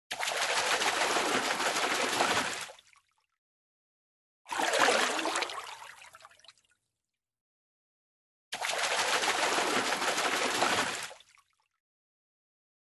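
Water splashing from a fish thrashing in water, in three separate bursts of two to three seconds each with dead silence between. The middle burst is shorter and fades out more gradually.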